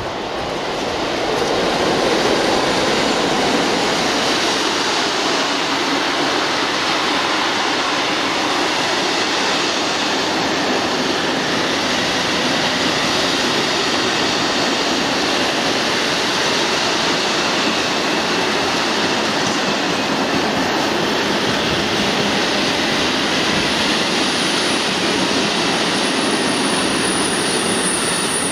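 Class 60 diesel locomotive 60039 passes with its engine running in the first few seconds. A long rake of covered freight wagons follows, its wheels rolling over the rails in a steady, loud noise.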